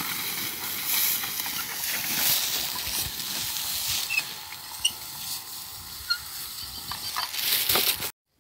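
Steady outdoor hiss and rustle with a few short, high chirps in the second half; the sound cuts off abruptly near the end.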